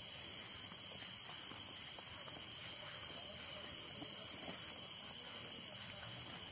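Crickets chirping in a steady, fast-pulsing high trill, with faint footsteps on a dirt path.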